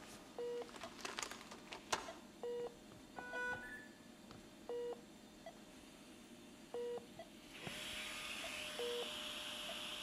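Operating-theatre patient monitor beeping, one short beep about every two seconds. A few clicks sound in the first two seconds, and a steady hiss comes in near the end.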